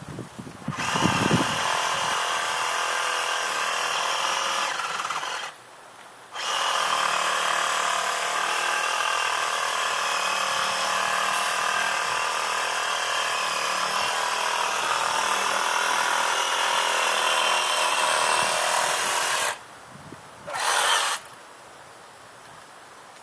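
Reciprocating saw (Sawzall) cutting through the wood of a small tree. It runs in two long runs, about four seconds and then about thirteen seconds with a brief stop between them, followed by a short burst near the end.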